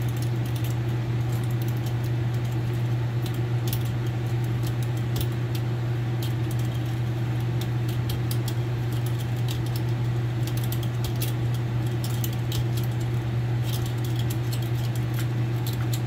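Steady low hum throughout, with scattered light clicks and clinks of copper wire being handled as it is stripped from a dryer stator.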